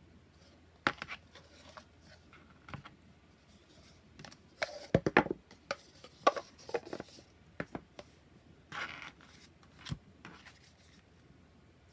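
Hands handling a boxed oracle card deck and its packaging: irregular taps, light clicks and scrapes, with a busier run of sharp clicks about five seconds in.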